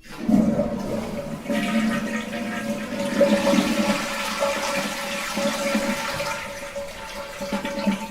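Toilet cistern flushing: a sudden start into a loud, steady rush of water with a steady ringing tone running through it.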